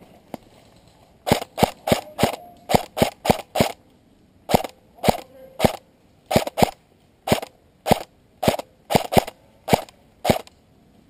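Airsoft rifle fired semi-automatically, about twenty sharp single shots in quick groups of two to four, about a second and a half in until near the end.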